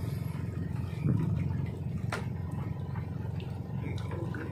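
Small boat engine idling with a low, steady throb, with a louder thump about a second in and a sharp knock a little after two seconds.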